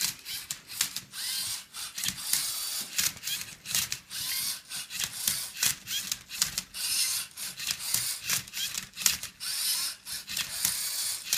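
Lego Mindstorms Rubik's Cube solver working through its solve: the motors whir as they turn the cube and flip it, and the plastic cube clicks and rattles. The sound comes in short irregular bursts with brief pauses between moves.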